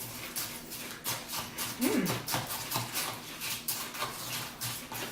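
Breakfast cereal being eaten fast: crisp crunching and chewing, a few crunches a second, with spoons clicking against bowls.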